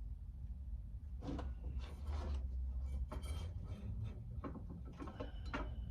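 Scattered scrapes and clicks of small metal fan-motor parts being handled and fitted back together, over a steady low hum.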